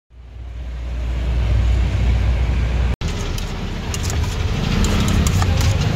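Steady low rumble of street traffic fading in. About three seconds in, a metal spoon starts clinking and scraping against a stainless steel bowl as chopped pork sisig is tossed, with the traffic rumble going on underneath.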